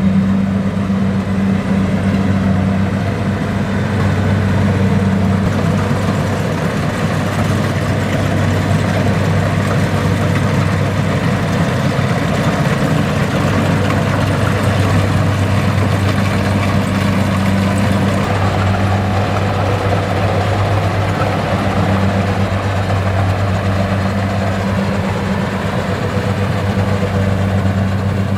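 Kubota combine harvester's diesel engine running steadily with a constant low hum and no change in speed.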